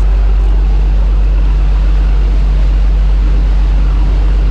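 A fishing boat's engine running with a steady low drone, under an even hiss.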